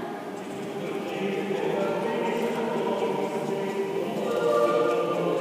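Mixed choir of women's and men's voices singing sustained chords in a church, swelling louder about four seconds in.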